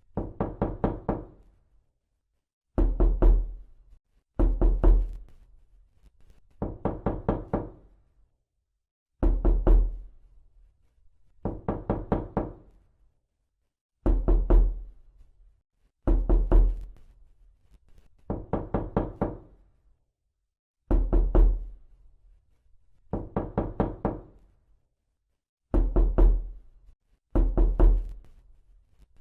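Knocking on a door, processed as 8D audio: repeated groups of four or five quick knocks separated by short silences, a group about every two seconds, alternating between louder and softer groups.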